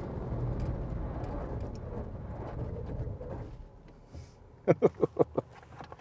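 Ford Ranger's turbo-diesel V6 and tyre noise on a wet road, heard from inside the cabin as the ute slows after its run, dying away about three and a half seconds in. Near the end comes a quick run of five short, sharp sounds.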